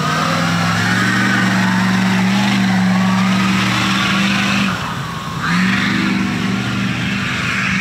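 An off-road vehicle's engine run hard at high, steady revs. The throttle comes off briefly about five seconds in, then the engine goes back to the same high revs.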